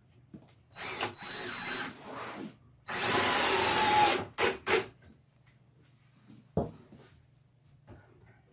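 Power drill driving screws into wooden 2x4s: a few short runs, then one longer, louder run about three seconds in, followed by two quick pulses. A single knock comes near the middle.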